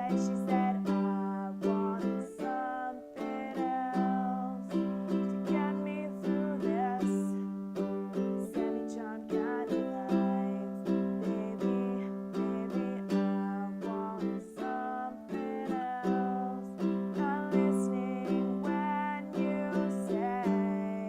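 A plucked string instrument playing a melody over a steady low drone: notes start sharply and fade, several a second, and some bend in pitch.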